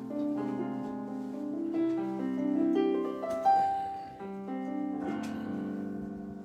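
Keyboard playing slow, held chords as quiet church background music, the chords changing every second or so.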